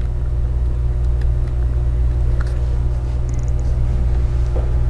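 Steady low hum in the background, with a few faint light clicks of small parts being handled.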